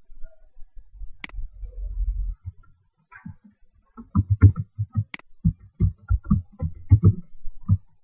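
Laptop keyboard typing: a sharp click about a second in, then a quick run of short keystroke taps, about four a second, from about halfway on.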